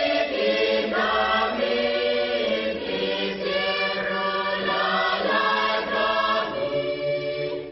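Choral music: a choir singing held chords that change every second or so, fading out at the very end.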